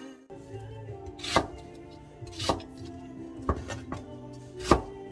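Chef's knife chopping on a wooden cutting board, cutting through raw pork belly and then an onion, with four sharp strokes about a second apart over soft background music.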